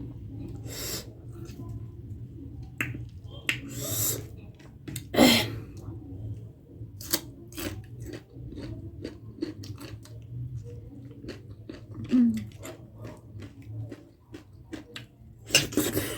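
Close-up mukbang eating: chewing and wet mouth sounds with many sharp lip smacks and clicks, and a few louder crunchy bursts, about a second in, near four and five seconds, and near the end.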